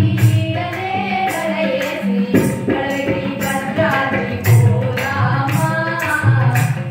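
A small group of singers, women's voices to the fore, singing a song together to tabla accompaniment, with crisp tabla strokes and the deep booming tone of the bass drum.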